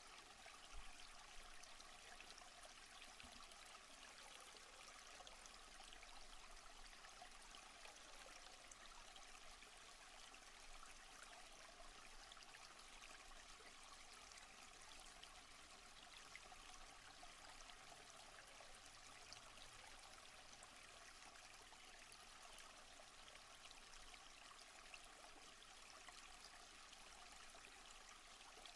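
Faint, steady sound of a stream's running water, an even rush with no breaks.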